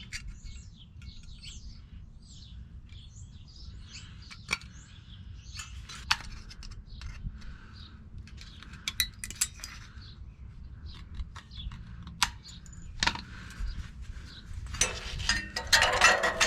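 Sharp clicks and light metallic clinks of thin stovepipe sheet-metal tabs being trimmed and fitted by hand, with a denser burst of scraping near the end. Birds chirp in the background.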